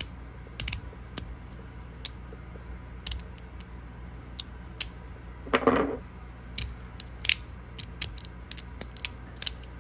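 Magnetic fidget slider clicking as its plates are slid and snapped together, sharp irregular clicks about two a second; this is the clicky version of the slider. A longer, louder noisy sound comes a little under six seconds in.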